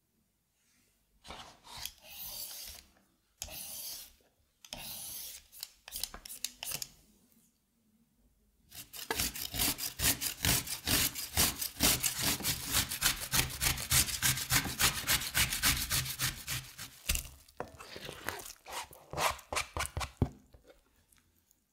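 Cucumber being grated on a stainless steel box grater: a run of rapid, rhythmic rasping strokes starting about nine seconds in, the loudest part. A few shorter, separate scraping passes come before it, and a few more scrapes near the end.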